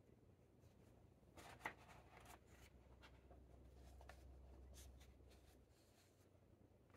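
A page of an old coloring book made of cheap, fragile paper being turned by hand: a soft rustle of paper with a sharper crinkle about a second and a half in, then faint handling of the page.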